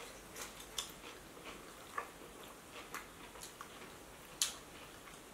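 Mouth sounds of people eating birria tacos: chewing with a scatter of irregular soft clicks and smacks, the sharpest a little over four seconds in.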